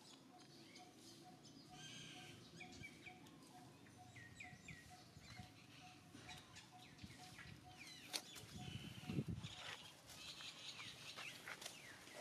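Quiet outdoor ambience with small birds chirping off and on in short high notes, over a faint note repeating about three times a second. A few louder knocks and rustles come about eight to nine seconds in.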